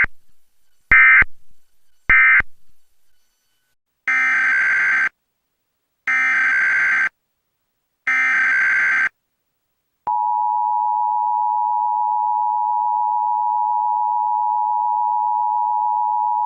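Emergency Alert System signals: three short end-of-message data bursts with echoing tails, then three longer SAME header data bursts about two seconds apart. About ten seconds in, the steady two-tone EAS attention signal begins. The sequence marks the end of one alert and the start of the next.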